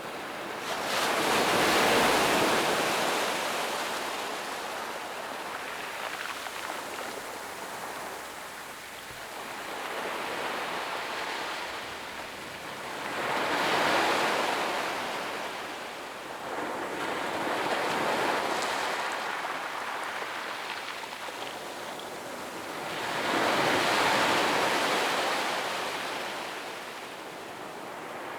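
Gentle ocean waves breaking and washing up a sandy beach, the surf swelling and fading every few seconds, with three larger breakers about ten seconds apart.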